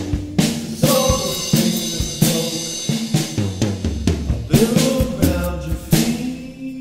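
Rock music: a drum kit with snare and bass drum keeping a steady beat under guitar and bass. Near the end the drums drop out, leaving a held chord.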